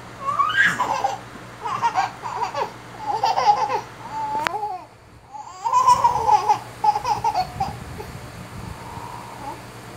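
A baby laughing and babbling in a string of high-pitched bursts, with a short pause about halfway through and fainter giggles near the end.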